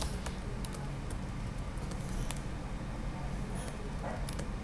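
A few scattered computer keyboard clicks, sparse and irregular, over a steady low background hum.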